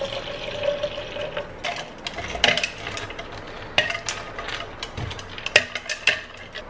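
Tap water running into a large drinking cup for about the first second and a half, then a string of sharp clicks and knocks as the cup is handled.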